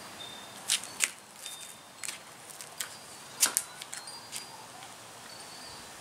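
A handful of light, scattered clicks and knocks, the loudest pair about three and a half seconds in: handling noise of the camera being moved and reframed.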